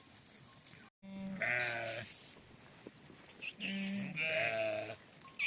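Two long, wavering bleats from the shepherd's flock of sheep or goats: one about a second in and a longer one about halfway through.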